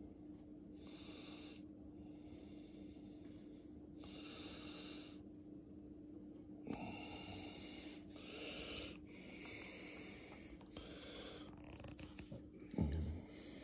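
A person breathing audibly in separate slow breaths that run together into nearly continuous breathing about halfway through, over a steady hum. A dull thump near the end.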